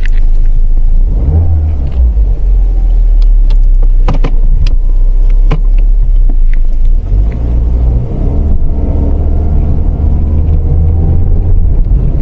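A 2015 Audi A4 being driven: a loud low engine and road rumble, with the engine note rising as the car accelerates about a second in and again from about eight seconds in, and a few sharp clicks in between.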